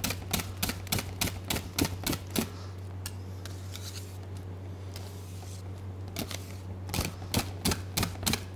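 Balloon whisk clicking against a stainless steel bowl at about four strokes a second, beating a thick mango-gelatin base loosened with a little cream so the mousse has no lumps. The clicking stops for about three and a half seconds in the middle, then starts again and grows louder.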